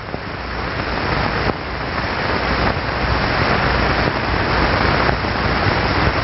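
Steady rushing of air from a blower nozzle, a wide hiss that swells over the first couple of seconds and then holds.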